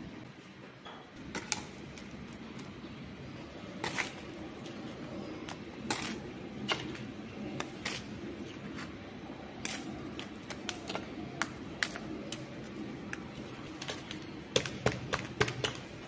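Irregular sharp clicks, taps and light scraping from repotting: a metal spoon scooping potting mix out of a clay pot and tipping it into a thin plastic cup, and small plastic nursery pots being handled. A quick run of clicks comes near the end.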